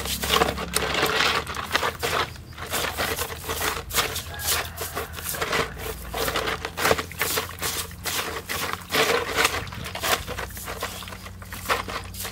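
Hands scrubbing a dead snake in a plastic basin of water: irregular wet splashing and scraping strokes, several a second.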